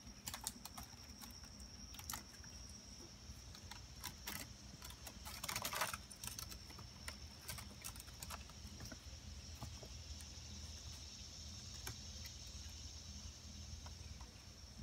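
Kittens' claws scratching and ticking on a wicker chair and its shaggy cushion as they scramble and wrestle: faint scattered clicks, with a denser burst of scrabbling about six seconds in. A faint steady high whine runs underneath.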